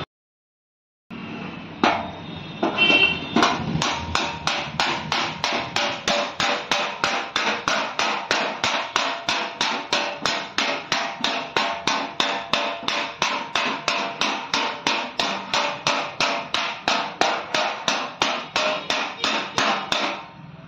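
A flat steel hand tool striking a detached car front fender over and over: a steady run of sharp metallic taps, about three a second, each ringing briefly.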